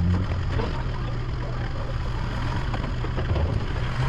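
Low, steady rumble of a motor vehicle engine running.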